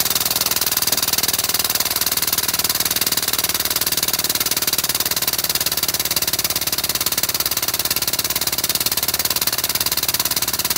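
An air-driven 10,000 PSI hydraulic pump runs on shop air while its pedal is held down, pumping oil to extend a 10-ton porta-power ram. It makes a rapid, steady chatter with a strong hiss.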